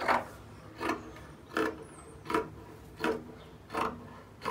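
Scissors snipping through T-shirt fabric, cutting it into strips: a steady run of about seven crunchy snips, roughly one every three-quarters of a second.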